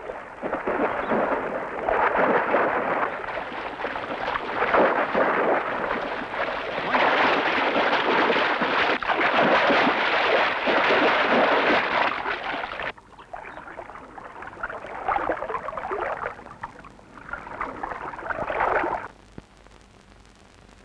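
Water splashing and churning, loud and irregular, as people and animals struggle in shallow water. About thirteen seconds in it drops to quieter bursts of splashing, which die away near the end.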